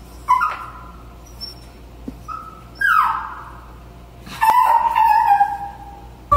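Pomeranian whining three times: a short whine, then a higher one that rises and falls, then a longer, steadier whine. It is crying at being left alone, thinking its owners have gone.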